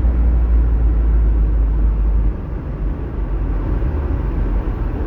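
Steady road and engine rumble inside a moving car's cabin, dropping a little in level just over two seconds in.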